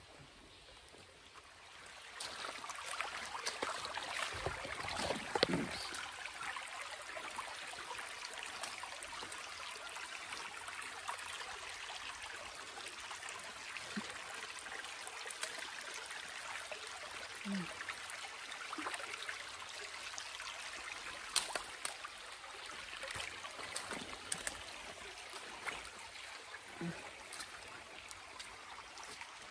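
Creek water running and trickling, coming up about two seconds in, with scattered small clicks and knocks over it.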